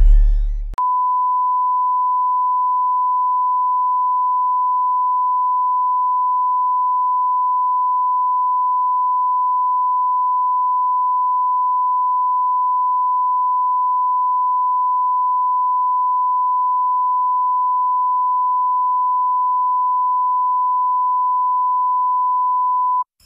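Broadcast colour-bars test tone: a single steady 1 kHz sine line-up tone that switches on abruptly under a second in, as the tail of an electronic music intro cuts off, holds unchanged at one level, and stops suddenly just before the end.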